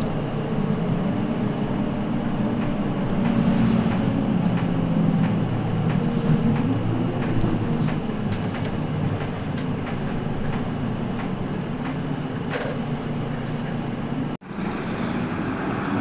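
City route bus in motion, heard from inside the cabin: a steady diesel engine and road drone with small rattles, the engine note drifting up and down as the bus changes speed. Near the end the sound cuts out for a moment, then the bus's engine is heard from outside.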